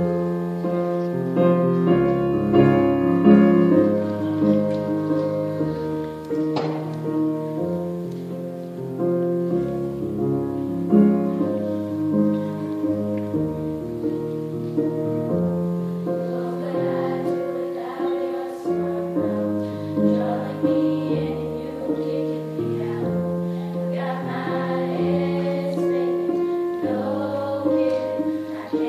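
Sixth-grade children's choir singing with instrumental accompaniment; the music begins suddenly at the outset.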